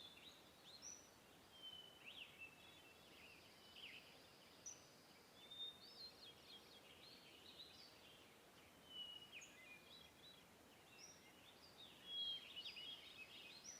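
Faint outdoor ambience of small birds chirping and whistling, with many short calls scattered throughout and a little more noise near the end.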